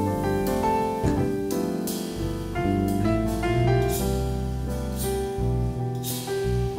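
Live Brazilian jazz combo playing, with the grand piano to the fore over a bass line and cymbal strokes from a drum kit.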